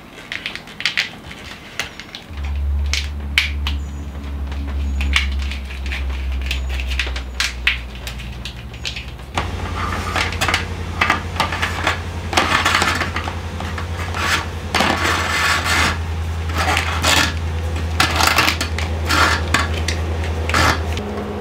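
Corrugated plastic wire loom and electrical wires rattling, clicking and scraping as they are threaded along a van's sheet-metal ceiling ribs. A steady low hum comes in about two seconds in and runs underneath.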